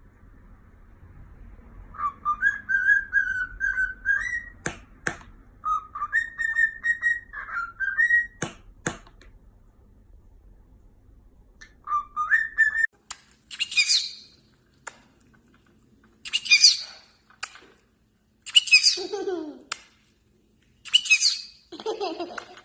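A pet parrot whistling short wavering phrases, with a few sharp clicks between them. It is followed by four harsh, raspy squawks, two of which slide steeply down in pitch.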